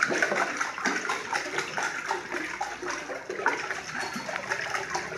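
Water splashing and sloshing inside a stainless steel pot as a small child's hands paddle in it, a quick irregular run of small splashes that dies down near the end.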